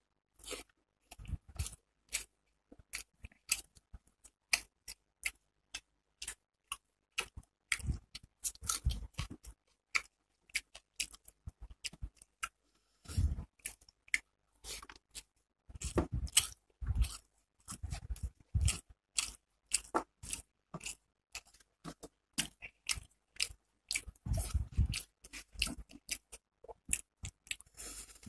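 Close-up chewing and wet mouth clicks of someone eating rice and fish by hand, a rapid irregular run of smacks with a few heavier bouts. Fingers scrape and tap on the steel plate as they mix the rice.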